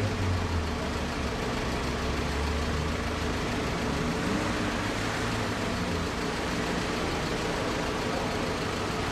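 A motor vehicle's engine running close by, a low steady hum that weakens about six seconds in, over a steady wash of street noise.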